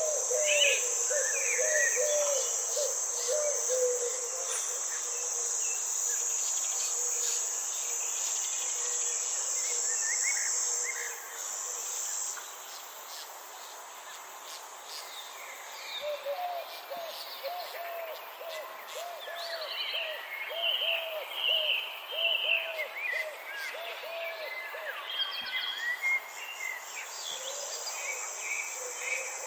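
Garden ambience: a steady high trill of insects, crickets by the sound, that stops about eleven seconds in and comes back near the end, with scattered bird chirps and a lower call repeated in quick runs near the start and again in the second half.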